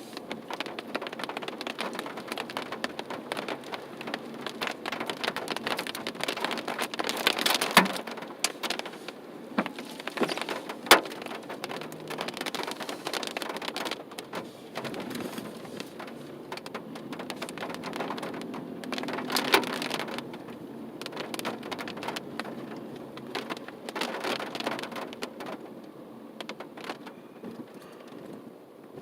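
Freezing rain pattering on a car, a dense irregular tapping throughout with a few sharper, louder knocks.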